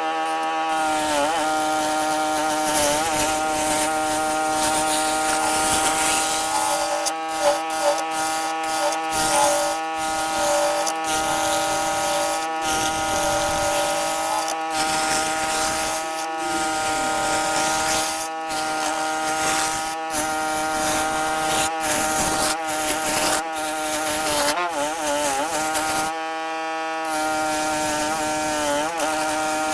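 Electric power tool running at a steady high-pitched whine as it works walnut wood, with a rough scraping hiss over the motor tone and brief breaks in the sound.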